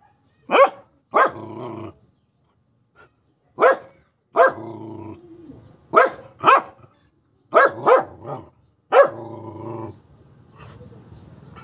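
A dog barking at a perceived enemy: about ten sharp barks, single or in quick pairs. Several trail off into a longer, lower drawn-out sound.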